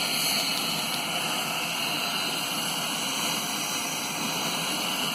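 Steady drone of the KC-130J tanker's turboprop engines in flight: an even rushing noise with a few steady high whining tones, unchanging throughout.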